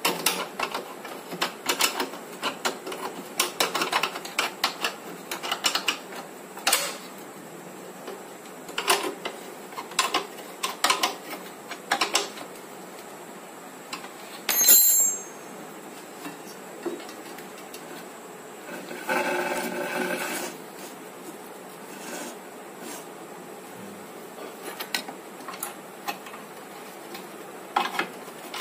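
A spanner working the motor mounting bolts on a wet grinder's steel frame: scattered metal clicks and ticks. About halfway through there is a brighter metal clink that rings briefly, and a short pitched sound about two-thirds of the way in.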